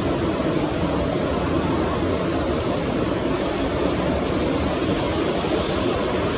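Boeing 787 twin turbofan engines heard from behind the aircraft: a steady, loud rushing jet noise that holds even throughout.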